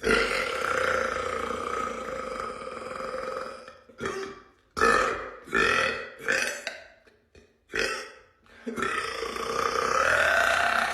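A young woman burping: one long drawn-out burp lasting about four seconds, then a quick run of short burps, then another long burp starting near the end.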